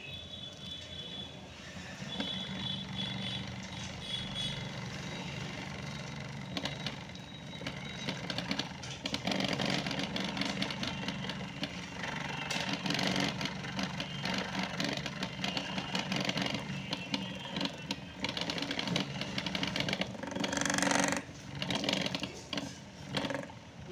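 Homemade grinder driven by an electric fan motor, running steadily with a low hum while grain rattles and grinds inside its spinning drum, milling rice into flour. The rattling grows louder and rougher about nine seconds in and surges briefly near the end.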